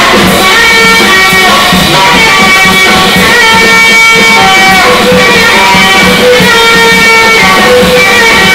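Free jazz improvisation: a tenor saxophone plays long held notes that step from pitch to pitch, over a drum kit played busily with cymbals and drums. It is loud and dense.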